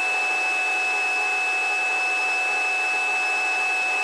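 Steady helicopter cabin noise in cruising flight, heard through the cockpit intercom: an even hiss with a steady high whine over it and almost no bass.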